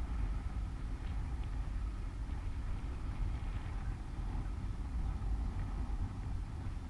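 A small boat moving slowly on the water: a steady low rumble from its motor and hull, with a faint wavering whine above it.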